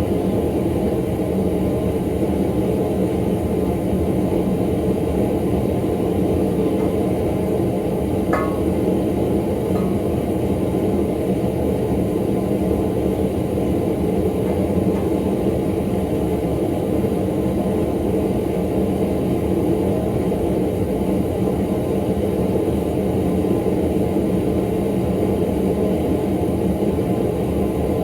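Blacksmith's forge running with a steady, even noise and hum, with one light metallic clink about eight seconds in.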